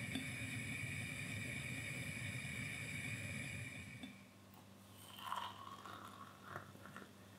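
A steady hiss and low rumble with a faint whine stops about four seconds in. After it, water is poured from a glass jug into a ceramic mug, making a few short splashes.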